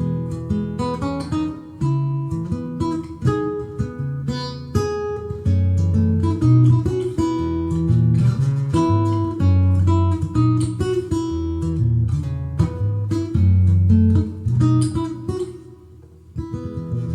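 Breedlove acoustic guitar played solo, a melody of single plucked notes over ringing bass notes. The playing eases off about a second before the end, then a few more notes are picked.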